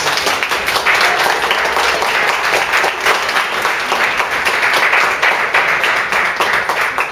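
Audience applauding: many hands clapping densely together, stopping abruptly near the end.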